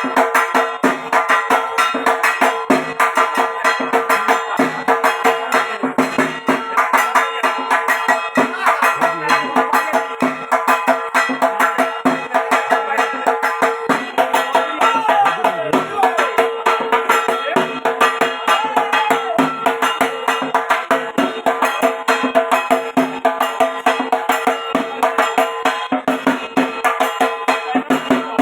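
Bengali dhak drums beaten with wooden sticks in a fast, steady, unbroken rhythm.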